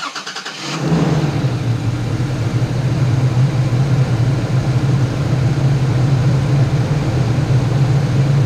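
2021 Toyota Tacoma pickup's engine started remotely with the key fob: a brief starter crank, then it catches and idles steadily.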